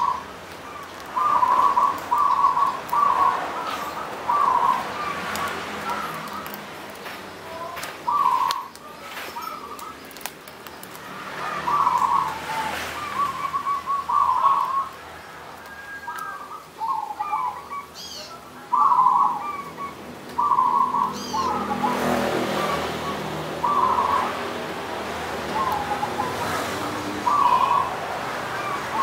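Caged zebra dove (perkutut) singing its cooing song: short clusters of soft, clipped coos repeated every one to three seconds. A few brief high chirps from other small birds come in between.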